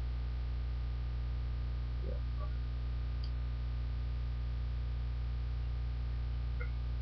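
Steady low electrical mains hum with its overtones picked up by the recording microphone, with a couple of faint clicks about two and three seconds in.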